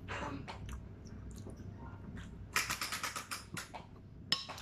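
Seafood shells being cracked and peeled by hand: scattered sharp clicks and crackles, with a dense run of crackling about halfway through and one sharp click near the end.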